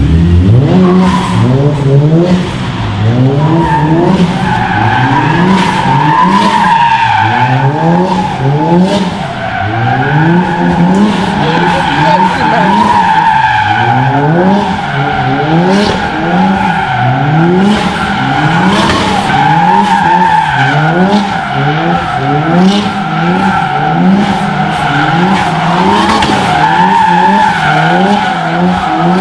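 Loud, continuous squeal of a car's tyres spinning on the pavement, with the engine revs rising and falling again and again, about once every second or two.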